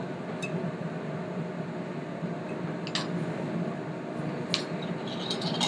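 Steady hum of a busy commercial kitchen, with a few light, sharp clicks of a fork against a china plate as a bite is cut and lifted.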